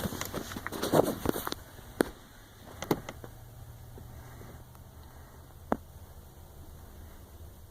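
Slow freight train of empty intermodal flatcars rolling past: a low steady rumble with single sharp metallic clanks every second or so, after a brief burst of crackling in the first second and a half.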